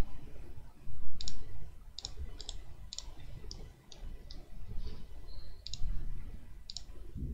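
Computer mouse button clicking, about ten short, sharp clicks spaced irregularly, several of them in quick pairs, as lines are placed and tools picked in a CAD program.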